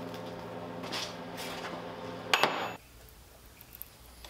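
Small drill press motor humming steadily while a steel bar is worked at it, with metal scraping and clatter and a sharp metallic clack about two and a half seconds in. Then the hum stops and only a few faint metal clicks are left, from a hand tap being turned into a hole in the steel bar.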